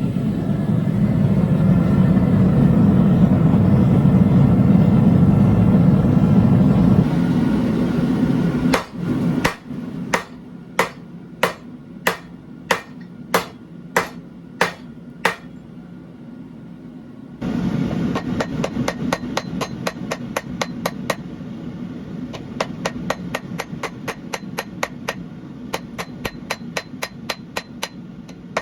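A steady low roar for the first several seconds, then a hand hammer striking hot steel on an anvil: about eleven evenly spaced blows, roughly one and a half a second. After a short pause come quicker, lighter blows, about three a second.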